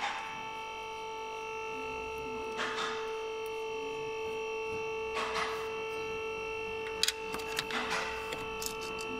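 Steady electrical hum with several fixed tones. Soft hissing swells come about every two and a half seconds, and a few sharp clicks come near the end.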